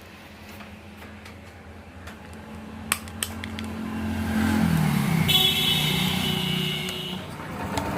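TVS XL100 BS6's single-cylinder four-stroke engine being started and brought up to running, with two sharp clicks about three seconds in and the engine growing louder from about four seconds. The timing-chain tensioner has just been reset, and the timing-chain rattle is gone: the engine runs completely silent of it.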